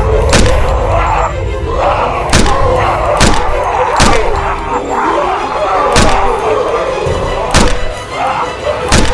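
Loud dramatic film score with heavy percussive hits landing about every one to two seconds.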